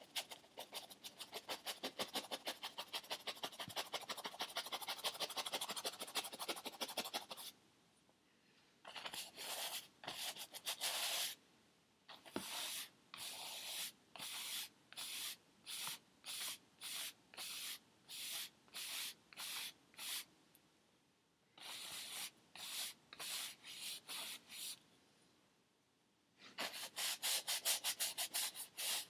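A paintbrush scrubbing on a stretched canvas. It opens with a run of quick back-and-forth strokes, several a second, then slows to single strokes about one a second with short pauses, and speeds up again near the end.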